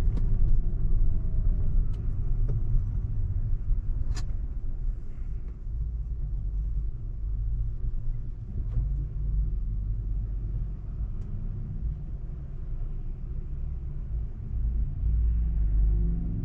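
Low, steady road rumble heard inside a Tesla's cabin as the electric car slows for a stop. A single sharp click sounds about four seconds in.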